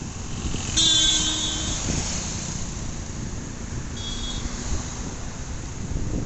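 Steady rumble of wind and road noise from a moving motorbike. About a second in, a pitched tone lasts about a second, the loudest moment, and a shorter high tone comes at about four seconds.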